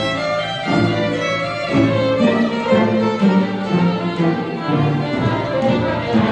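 String orchestra of violins, violas, cellos and double basses playing a very fast movement, with quickly changing bowed notes and a strong low line in the cellos and basses.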